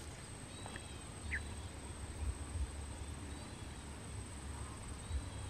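Quiet swamp ambience: a few faint short bird chirps in the first second and a half, over a steady high insect whine and a low rumble.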